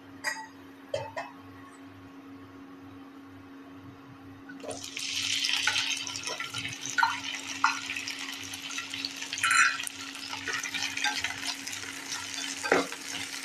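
Chopped okra tipped into hot oil in a nonstick pan, starting a loud sizzle about five seconds in that keeps going as it is stirred with a spatula, with a few light knocks. Before that, only a steady low hum.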